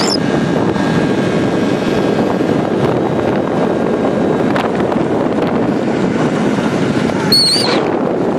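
Steady rush of wind buffeting the microphone while riding a motor scooter at speed, with the scooter running underneath. Near the end a brief high, wavering squeal cuts through.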